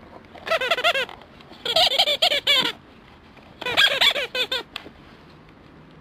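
A dog chewing a rubber rhinoceros squeaky toy, making it squeak in three quick bursts of rapid squeaks.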